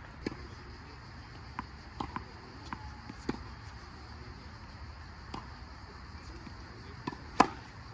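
Tennis ball bounced a few times on a hard court before a serve, then one loud, sharp racket strike on the ball near the end as the serve is hit.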